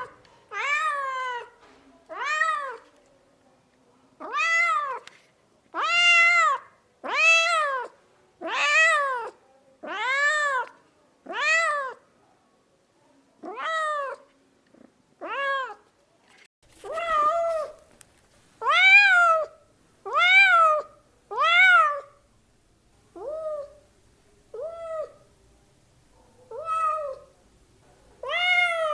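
Domestic cat meowing over and over: a long run of short meows, about one a second, each rising then falling in pitch, with a few brief pauses between groups.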